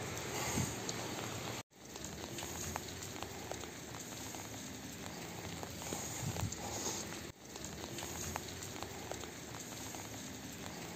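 Steady hiss of outdoor background noise with faint crackles and ticks, cut off abruptly twice where the recording is edited.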